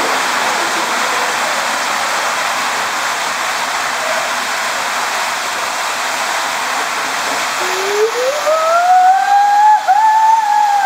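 Steady rushing of water and the raft sliding through an enclosed water-slide tube. From about seven and a half seconds in, a rider's long cry rises in pitch, holds, and falls away again.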